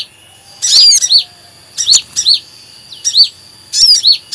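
Bird-lure track of mixed sunbird calls, sogon (crimson sunbird) with kolibri kelapa (brown-throated sunbird) in 'kejepit' distress calls: sharp, high chirps in quick clusters of several notes each, about once a second.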